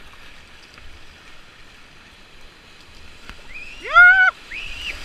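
Whitewater rushing around an inflatable kayak running a rapid. About four seconds in there is a loud, high-pitched squeal from a person, rising then falling, and a shorter one follows it.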